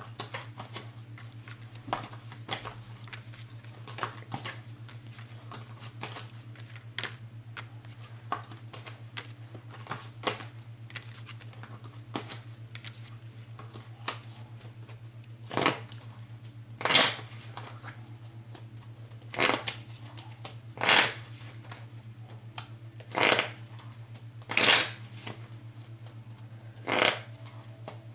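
Tarot cards being handled and shuffled: light clicks and taps at first, then, from about halfway, a run of louder card-shuffling strokes every second and a half or two, over a steady low hum.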